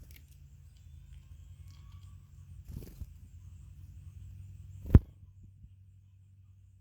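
A single sharp knock at the bird feeder about five seconds in, with a softer rustle a couple of seconds earlier, over a low steady outdoor rumble.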